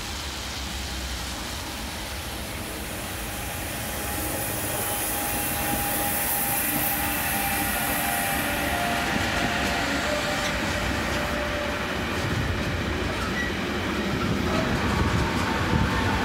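A freight train passing close by, hauled by two electric locomotives, the leading one a BLS Cargo Bombardier TRAXX. The train grows louder about four seconds in as the locomotives arrive, with a high hiss while they pass. After that come the wagon wheels rumbling and clattering over the rails, with faint whining tones.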